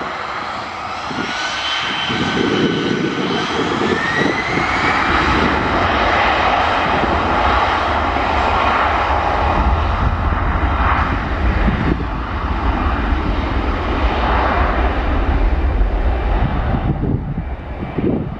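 Aeroplane engines running loudly: a whine rising in pitch over the first few seconds, then a steady roar with a deep rumble, dropping away near the end.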